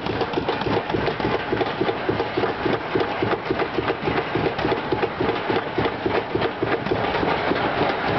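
Suspended roller coaster's lift-hill chain clanking steadily as the train is pulled up the lift hill, about four to five clacks a second.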